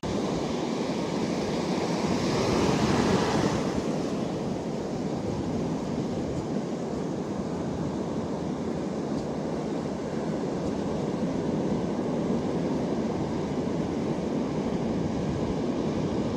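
Ocean surf: waves breaking and washing through the shallows in a steady rushing wash, with wind buffeting the microphone. One wave swells louder about two to three seconds in.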